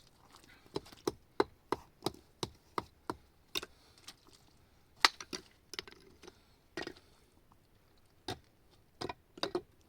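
Hand hatchet chopping wood: a quick, even run of about ten sharp strikes, then slower, scattered blows.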